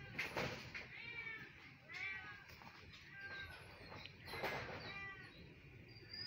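A cat meowing repeatedly, about four or five short arching meows roughly a second apart. Two brief rushes of noise come in, one just after the start and one past four seconds.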